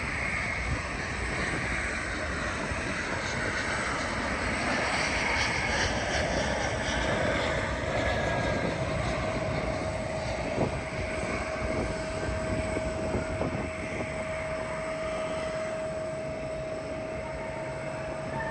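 Jet airliner on landing approach, a steady engine roar. A whining tone comes in about seven seconds in and holds.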